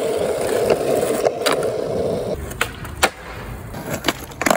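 Skateboard wheels rolling over rough asphalt with a steady rumble that stops about halfway through. Near the end come several sharp clacks of a skateboard deck popping and landing on concrete.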